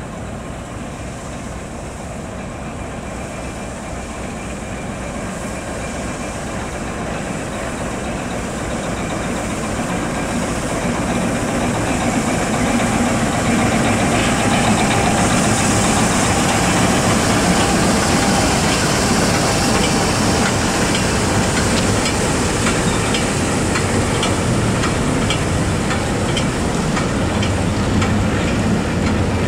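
Diesel locomotive slowly hauling old freight wagons, its engine growing louder as it approaches and passes about halfway through, after which the wagons' wheels click steadily over the rail joints.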